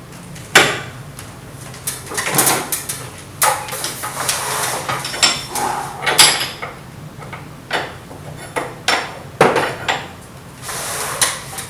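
Metal spanners clanking, knocking and scraping irregularly against metal fittings as tight nuts on the split air conditioner's pipe joints are worked loose. Some knocks ring briefly.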